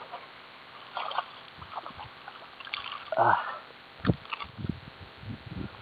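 A few small, scattered water splashes and short knocks from a casting lure landing on a shallow ditch and being worked across the water.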